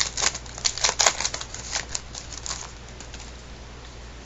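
A trading card pack wrapper crinkling and crackling as it is handled and torn open: a quick run of sharp crackles that dies away about two and a half seconds in, leaving a steady low hum.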